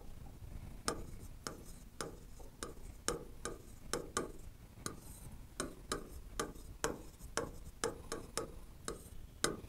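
Stylus tip tapping and scraping on the glass of an interactive touchscreen board during handwriting: an irregular run of sharp clicks, about two or three a second.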